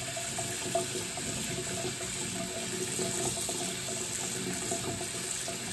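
Bathroom sink faucet running steadily, its stream splashing onto hands and a wet kitten in the basin.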